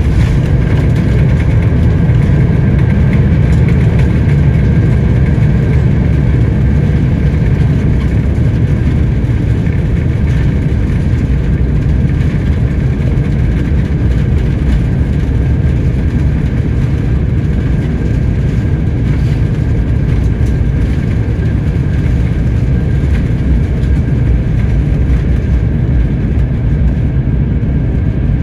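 Steady jet-engine and airflow noise inside an airliner's passenger cabin: a loud deep rumble with a faint steady whine above it, unchanging throughout.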